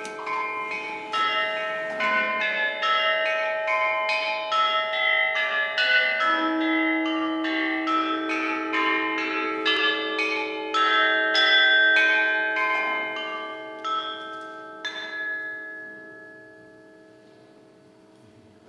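Tuned chimes ringing in a long run of overlapping struck notes, each note sustaining. The strikes stop about fifteen seconds in and the ringing fades out.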